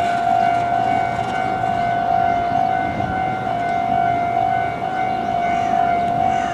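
Level-crossing warning signal sounding steadily at one pitch, over a continuous low rumble of heavy-vehicle noise.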